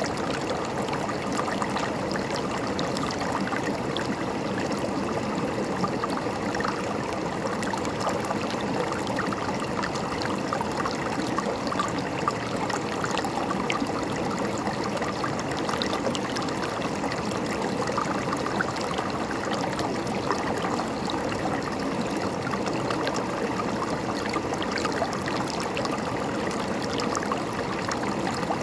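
River water running and gurgling over rocks, a steady rush with fine splashing and trickling.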